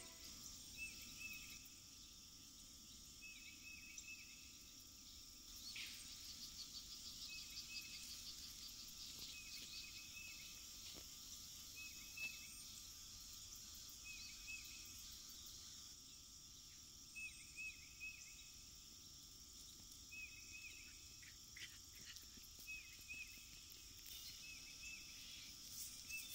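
Faint field ambience of insects: a steady high drone with short, high chirps repeating every second or two.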